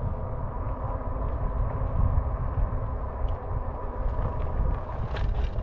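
Wind buffeting the camera microphone on a moving e-bike, a steady low rumble with a faint, steady high whine. A few light clicks come near the end.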